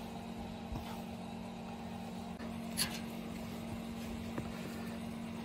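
Faint rustle of moulding sand being dropped and spread by hand in a casting flask, with one brief hissing pour a little before the three-second mark and a few small clicks. A steady low hum runs underneath.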